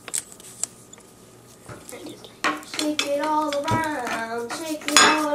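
Light clicks and clinks of tableware, a salt shaker against a plate, with one sharp clink near the end. From about halfway, a wordless voice vocalises, its pitch gliding up and down.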